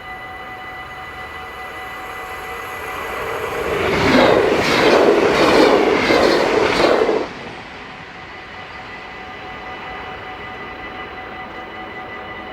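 Train passing through a Dutch level crossing: its noise builds about three seconds in, runs loud for around three seconds with repeated wheel clacks, and cuts off abruptly. The crossing's warning bells ring steadily underneath throughout.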